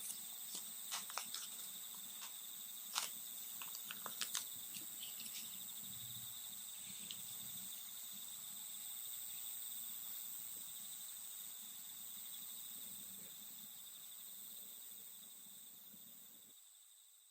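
Cicadas singing in a steady, high, shrill chorus that fades out near the end. Sharp clicks come and go over it in the first few seconds, the loudest about three and four seconds in.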